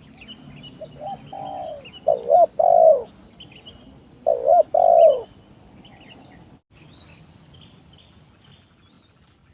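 Spotted dove (tekukur) cooing in three phrases in the first five seconds, the last two louder, as a lure call to draw wild doves. Small birds chirp and a steady high buzz runs behind it, and everything fades after about six and a half seconds.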